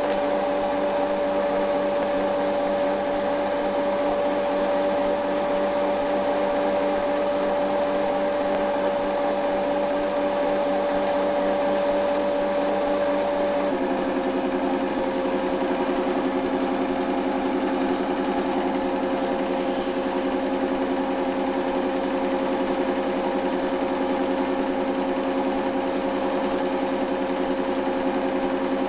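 8mm cine projector running with a steady mechanical whirr and chatter. Its hum steps slightly lower in pitch about halfway through and then holds.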